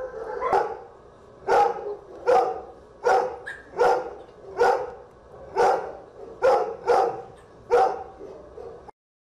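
Dog in a shelter kennel barking repeatedly, about ten sharp barks at roughly one a second; the sound cuts off abruptly near the end.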